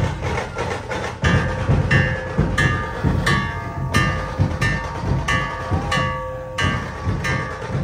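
Live parade percussion: a steady drum beat with a ringing metal instrument struck about three times every two seconds.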